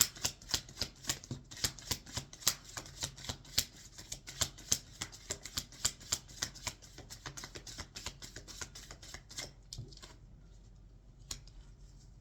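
Tarot deck being shuffled by hand: a quick, even run of sharp card slaps, about three or four a second, that stops about ten seconds in, followed by a couple of single taps.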